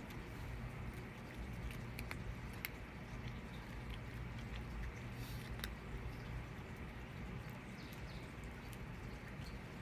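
A cat chewing dry kibble: scattered small crunches and clicks over a steady low background rumble.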